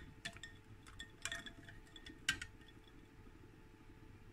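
Ice cubes and a metal slotted spoon clinking against a glass bowl of ice water as a poached egg is lowered in: a handful of short glassy clinks in the first two and a half seconds, the last one the loudest.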